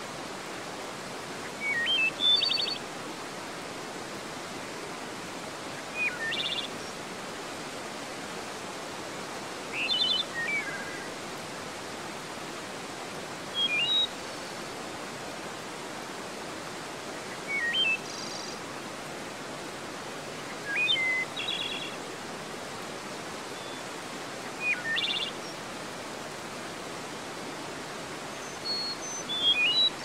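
Steady rush of river water pouring over a dam weir into rapids, with a songbird singing a short phrase, a quick rising note followed by a buzzy trill, repeated every three to four seconds.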